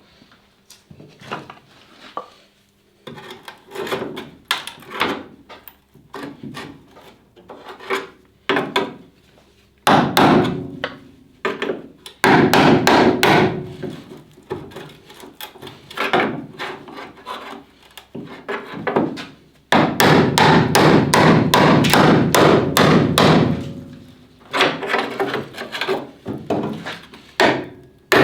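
Hammering on car-body sheet steel: scattered single knocks, then long bursts of rapid, closely spaced strikes, as the old battery tray is cut and knocked free of its spot welds.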